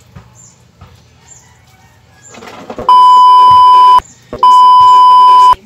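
Two loud steady beep tones, each about a second long with a short gap between them, starting about three seconds in: an edited-in censor bleep over the soundtrack.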